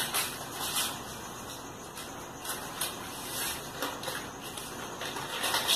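Plastic sachet of instant coffee crinkling as it is squeezed and shaken out into a mixing bowl, in short, irregular crackles.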